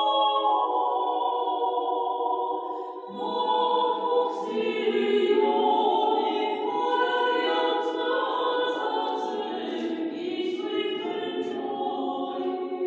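Small choir singing ancient Armenian sacred music a cappella, holding long notes in a stone hall. About three seconds in, lower voices come in and the sound fills out.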